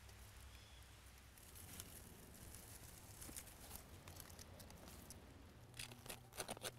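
Mostly near silence with faint scattered rustling. Near the end come a few sharper clicks and rustles as a small knife cuts clustered mushrooms from the base of a tree stump.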